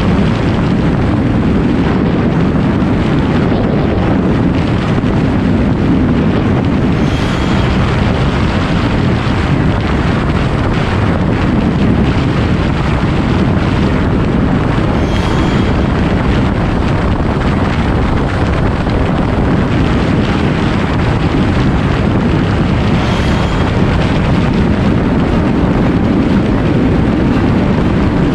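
Steady wind rush on the microphone of a Honda CBR 125R motorcycle at highway speed, with its single-cylinder engine running and road noise mixed in.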